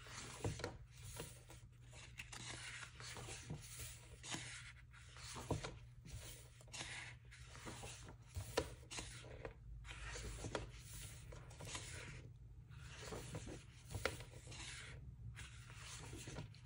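Pages of a photo book being turned by hand: paper rustling and sliding under the fingers in repeated short patches, with a few sharp ticks as pages flip over.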